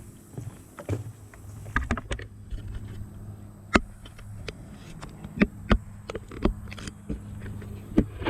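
Hikers' footsteps crossing a footbridge: sharp, irregular knocks of boots on the deck, a few of them much louder than the rest.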